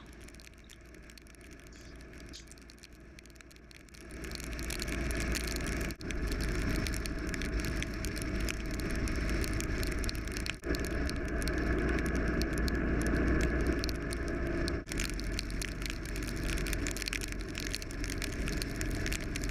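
Harley-Davidson Sportster 48 motorcycle riding through a rainstorm: steady wind, rain and road noise over a low engine rumble. It is quieter at first, gets louder about four seconds in, and drops out briefly three times.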